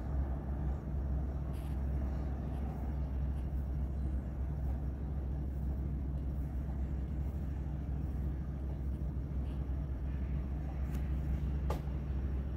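Steady low background rumble and hum, with a couple of faint sharp clicks near the end.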